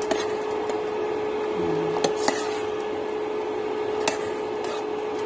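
Steady kitchen hum over a pot of stew on the cooktop, with a few sharp metallic clicks of a ladle against the steel cooking pot.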